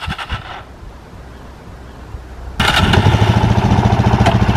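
Suzuki DR-Z400E's single-cylinder four-stroke engine: after a quiet spell it fires up about two and a half seconds in and runs with a steady, even thumping.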